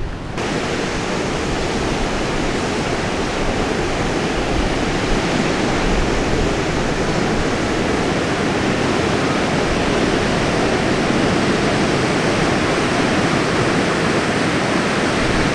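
Steady, even rush of ocean surf breaking.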